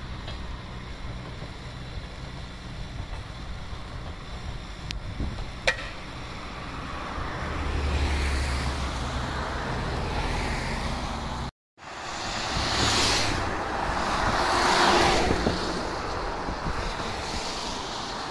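Passing vehicle noise from the road and railway: a rushing rumble that swells about eight seconds in, breaks off abruptly for a moment near the middle, and then swells twice more.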